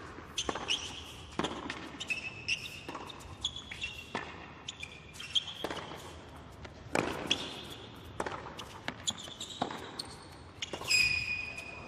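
Tennis rally on a hard court: racket strikes on the ball about every second and a half, with ball bounces and short high-pitched shoe squeaks between them.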